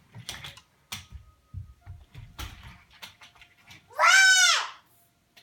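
A young child's single high-pitched squeal, under a second long, rising then falling in pitch, about four seconds in. Before it come scattered soft knocks and taps.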